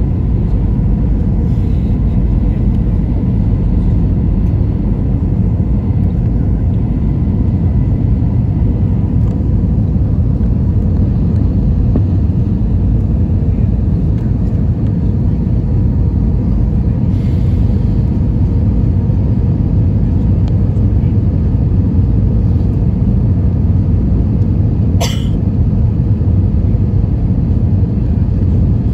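Steady low rumble of airliner cabin noise inside an Airbus A321, with a faint steady tone riding over it. A single brief sharp click about 25 seconds in.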